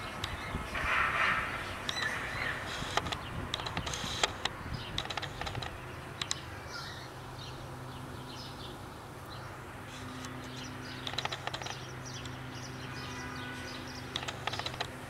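Outdoor ambience with scattered small clicks and ticks, mostly in the first half, and a short bird chirp about two seconds in. A faint steady low hum comes in about halfway through.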